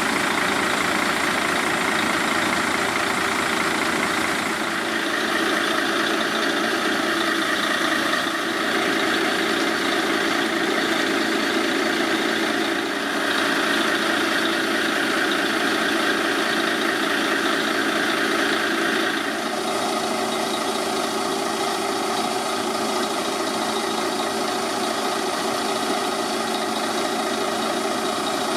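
Mercedes-Benz Actros concrete mixer truck with a Liebherr drum, its diesel engine running steadily. Its note shifts a few times through the stretch.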